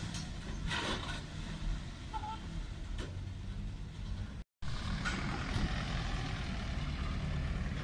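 Motor vehicle engines running with a low, steady hum, broken by a brief dropout to silence about halfway through.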